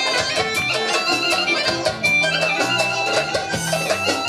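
Live band playing Balkan kyuchek dance music: a high, ornamented lead melody over bass notes and a steady dance beat.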